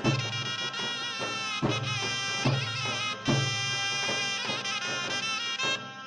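Instrumental passage of a Turkish folk song: a wind instrument plays the melody over drum strokes.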